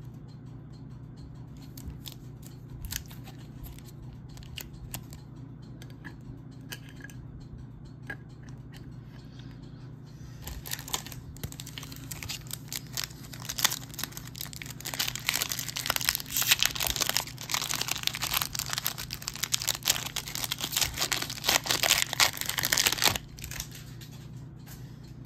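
A Donruss Optic football card pack's wrapper being torn open and crinkled: a long stretch of dense crackling starting about ten seconds in and stopping sharply near the end, after a few light clicks of cards being handled.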